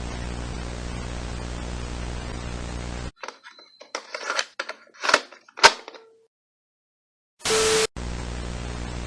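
Dead-air broadcast static: a steady mains hum under hiss. About three seconds in it cuts out to a run of crackles and sharp cracks, the two loudest about five seconds in, then goes silent for about a second. Near the end a short, loud blast of noise cuts in, and the hum and hiss return.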